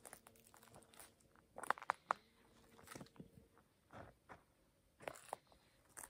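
Footsteps crunching on a forest path, short uneven crunches about once a second, the loudest cluster about two seconds in.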